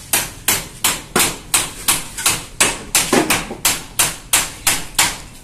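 A hammer striking repeatedly at an even pace, about three blows a second.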